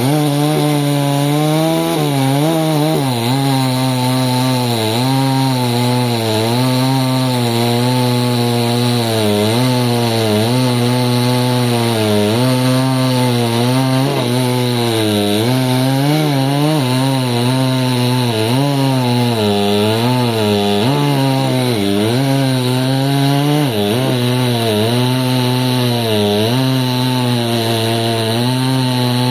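Chainsaw running at high speed while cutting through a large log. Its engine pitch dips and recovers every second or two as the chain bites into the wood.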